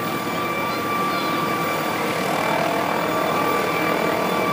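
Small helicopter hovering low over the ground before landing: steady rotor noise with a high, even whine on top.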